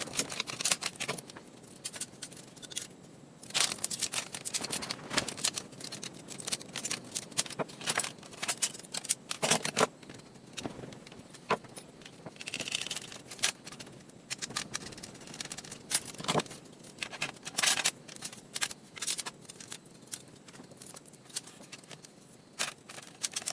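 Dell laptop being taken apart by hand: irregular clicks, taps, scrapes and rattles of plastic and aluminium parts, with a longer scrape about halfway through.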